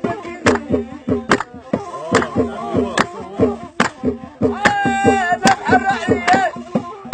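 Steady hand clapping, a little more than one clap a second, keeping time to Algerian gasba music: a voice and the gasba reed flute. A long held note comes about halfway through.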